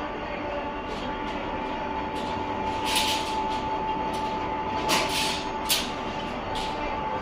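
Wire stripping machine running with a steady motor hum and whine, broken by short scraping hisses every second or so, the loudest about five seconds in.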